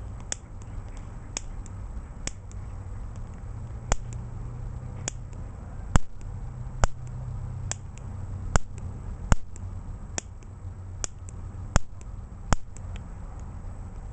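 Piezo lighter igniter clicked over and over, each click firing a sharp snapping spark across the gap of an early-1920s Champion Gas Engine Special spark plug. The clicks come singly at irregular intervals, a few seconds apart at first, then louder and more frequent through the middle.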